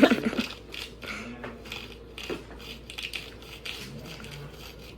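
Rapid light clicks and clatter, with faint voices in the background.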